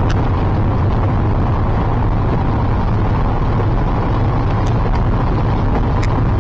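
Steady road and engine noise inside a moving car's cabin, deep and even, with a few faint clicks.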